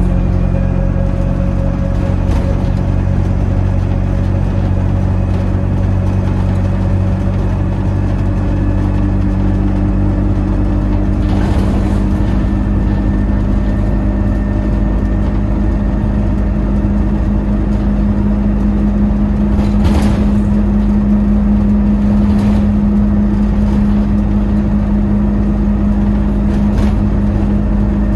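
Dennis Dart single-decker bus engine and drivetrain heard from inside the passenger saloon on the move. A steady low hum gets stronger in the second half, with a few short knocks and rattles from the body.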